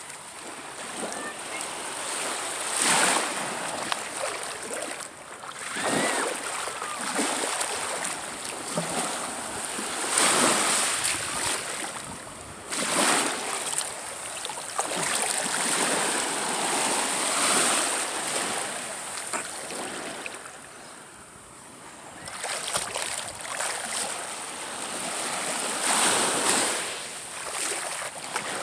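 Small waves of a calm sea washing onto the beach, swelling and fading every few seconds.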